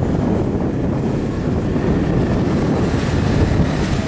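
Wind buffeting the microphone as a steady low rumble, mixed with the engines of two 4x4 SUVs driving by.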